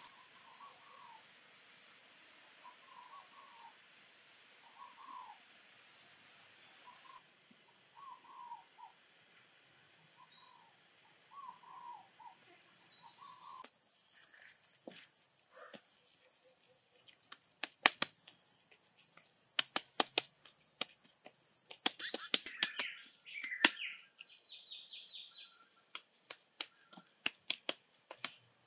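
Insects buzzing steadily at a high pitch, with a bird calling about once a second in the first half. About halfway through the sound gets louder and sharp clicks and pats come from hands pressing and slapping wet clay.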